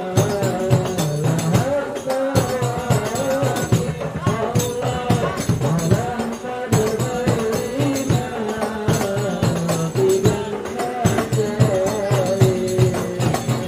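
Sholawat sung by a group of male voices over a hadrah ensemble: hand-held rebana frame drums played in a fast, busy rhythm, with a large drum struck with a beater.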